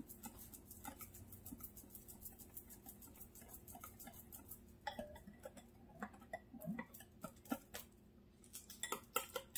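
Wire whisk beating a runny egg-and-butter batter in a glass mixing bowl: quick light ticks of the wires against the glass, several a second, with a short break near the end before they start again.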